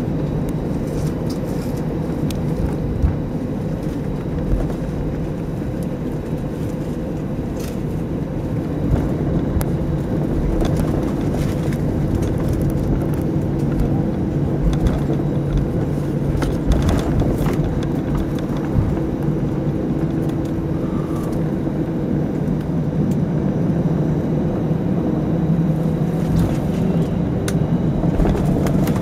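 Airbus A319 cabin while taxiing: a steady jet engine hum at low thrust, with a few short knocks and rattles scattered through it.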